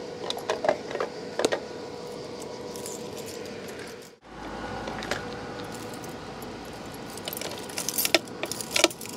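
A bunch of keys jangling and clinking in short bursts with a few sharp clicks: the keys for the e-bike's battery locks being handled. There is an abrupt break about four seconds in, and a second cluster of jingles near the end.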